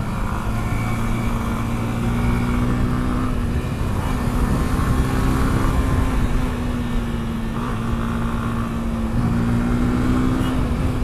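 A motor vehicle on the move: a steady engine hum at constant speed under road and wind noise.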